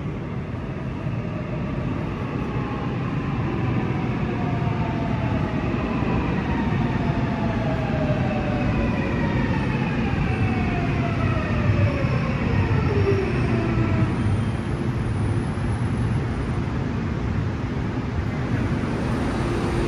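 Seoul Subway Line 7 electric train pulling into the station and braking to a stop. A whine from its electric drive falls steadily in pitch over about ten seconds, over a continuous rumble of the wheels on the rails.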